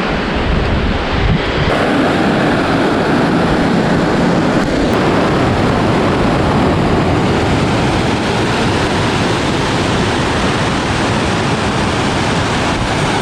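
Steady, loud rush of fast-flowing river water.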